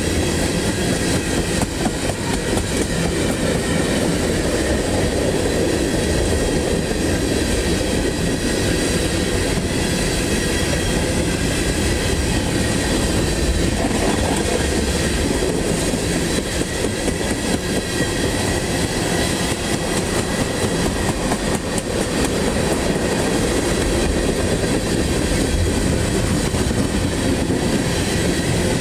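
Freight train of tank cars rolling past close by: a steady, unbroken rumble of steel wheels on rail.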